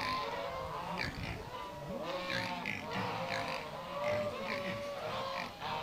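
Farm animals calling: many short, overlapping calls, each rising and falling in pitch, repeating throughout.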